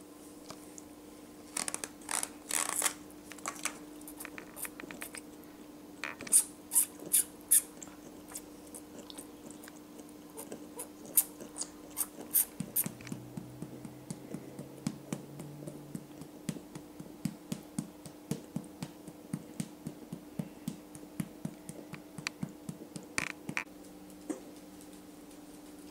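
Wombat joey suckling milk from a syringe teat: wet sucking and lip-smacking clicks, a few louder smacks in the first half, then a quicker run of softer clicks from about halfway, over a faint steady hum.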